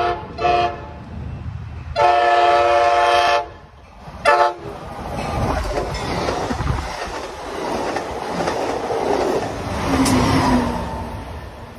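Amtrak Pacific Surfliner passenger train sounding its horn as it approaches: a short toot, a long blast about two seconds in, and another short toot about four seconds in. It then runs past close by: the coaches rumble and clack over the rails, louder near the end as its Siemens Charger diesel locomotive goes by.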